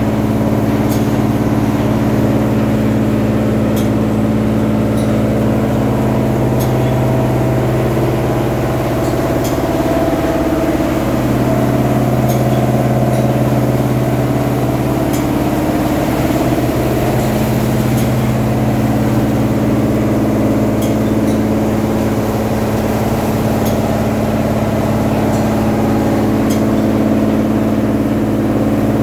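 MAXIS automatic carpet washing machine running, its row of disc brushes working over a carpet: a steady motor hum with light ticks now and then.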